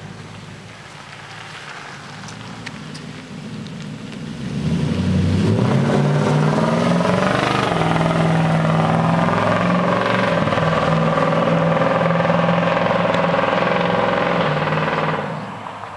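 2011 Nissan Titan's 5.6-litre V8 running through Berk B-pipes, high-flow Magnaflow cats and a Dynomax Bullet muffler. About four seconds in, the exhaust note swells loud and rises in pitch as the truck accelerates past, then holds a steady, deep tone. It drops off sharply near the end.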